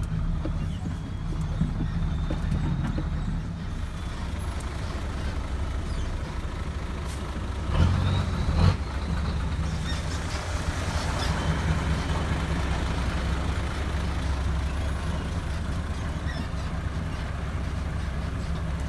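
Dump truck's diesel engine running steadily, heard from inside the cab, with a brief louder burst about eight seconds in.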